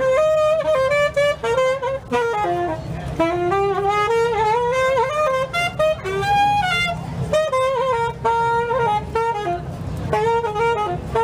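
Saxophone playing a live blues melody line of quick runs of notes, with bends and a few held notes, over a steady low accompaniment.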